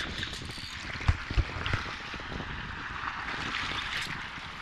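Wind on the microphone and sea water lapping at the shore, a steady rushing noise, with two short low thumps a little after a second in.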